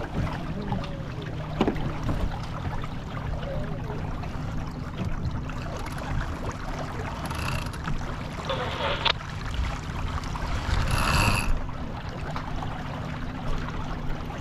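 Wind and water noise aboard a J24 sailboat under way upwind: a steady rumble of wind on the microphone and water rushing along the hull. Two louder surges of water come near the middle and about eleven seconds in.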